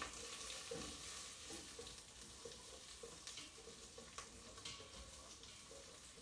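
Bacon sizzling in a stainless steel pot as its fat renders out, with a utensil stirring and scraping it now and then.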